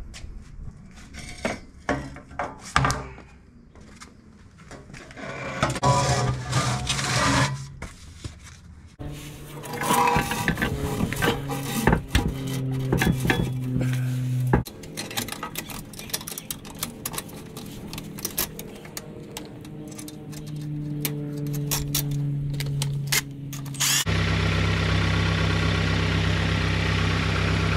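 Clanks and clicks of tools and metal exhaust pipe being fitted under a car, in short separate snippets. Near the end a Honda Civic's engine starts idling steadily, run for a soapy-water leak check at the exhaust's V-band flange.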